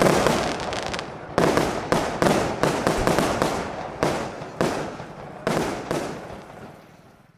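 Aerial fireworks bursting in quick succession, each bang followed by crackling, dying away over the last couple of seconds.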